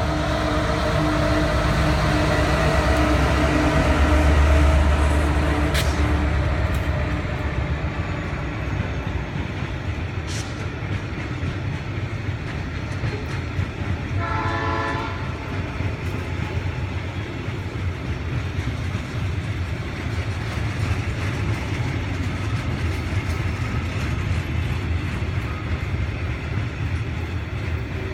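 ARG S class diesel locomotive 3303 passing close by with its engine running, loudest about four to five seconds in and fading after about seven seconds. A long rake of bauxite hopper wagons then rolls past with a steady rumble and clatter of wheels on the rails, broken by a brief pulsing whine about halfway through.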